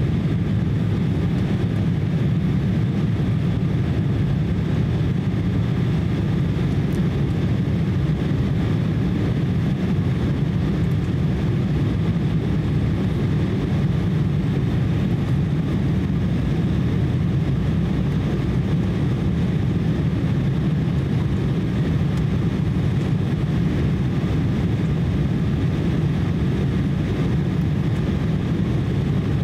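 Steady, deep cabin noise inside an Embraer E170 airliner on final approach: its General Electric CF34 turbofan engines and the airflow over the fuselage make an even rumble that does not change.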